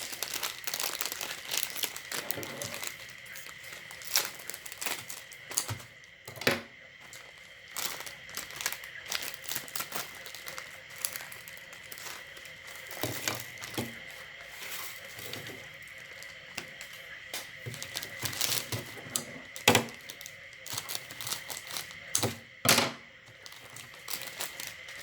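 Irregular crinkling and crackling with scattered sharp cracks, typical of Enaak crunchy snack noodles and their plastic packets being handled and broken up.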